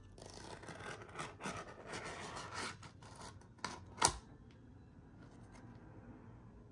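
Hands handling an item: about two and a half seconds of rubbing and rustling, then a small click and a sharp louder click about four seconds in.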